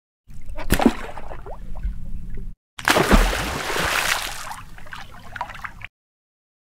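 Water splashing and trickling in two stretches, about two seconds and then about three seconds, each cutting in and out abruptly.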